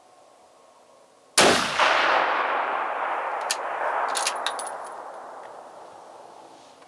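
A single rifle shot from a scoped rifle: a sudden loud crack about a second and a half in, followed by a long echo that slowly dies away over several seconds. A few short, sharp clicks come about two to three seconds after the shot.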